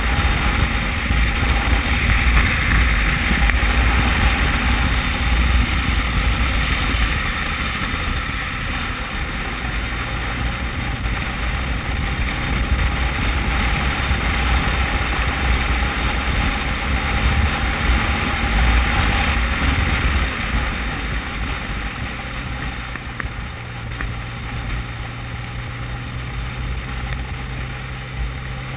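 Motorcycle engine running at road speed, with heavy wind buffeting on the microphone. The engine note drops to a lower pitch about three-quarters of the way through.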